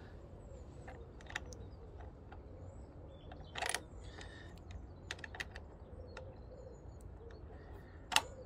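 Scattered faint clicks and light knocks of a plastic engine air filter cover and its wing nut being handled and seated by hand, with a louder clatter about three and a half seconds in and another near the end.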